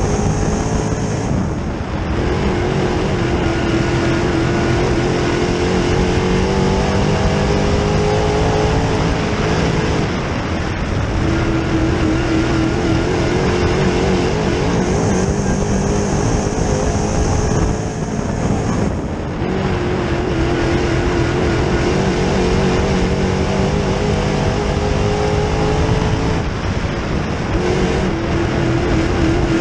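Dirt late model's 604 crate small-block V8 heard from inside the car at racing speed. The engine revs climb, then ease off and drop about every eight to nine seconds as the car lifts for the turns.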